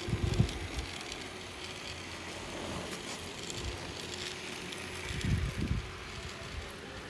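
Toy train set's battery-powered locomotive running around plastic track: a steady motor hum with light clicking from the wheels on the track. A few low thumps, about a third of a second in and again near five and a half seconds, are the loudest moments.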